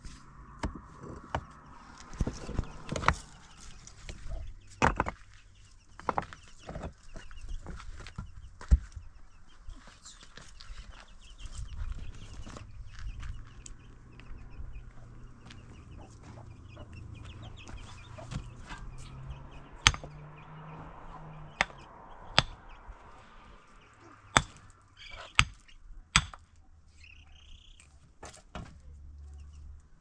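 Rough stones knocking and clacking as they are set on a stone wall, in sharp separate knocks at irregular intervals, with a chicken clucking.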